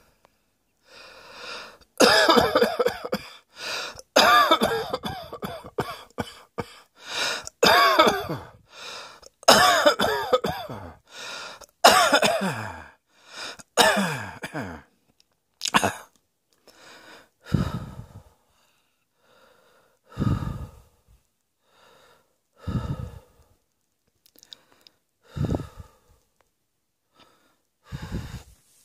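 A person coughing: a long, hard fit of coughs in quick succession, easing into single coughs a couple of seconds apart in the second half.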